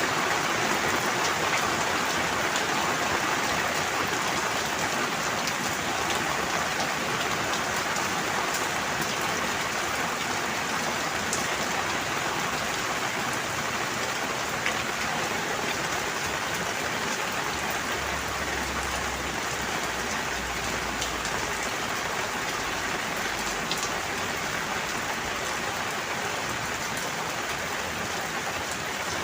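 Steady rain falling, a dense even hiss scattered with individual drop ticks, with a faint low rumble for a few seconds past the middle.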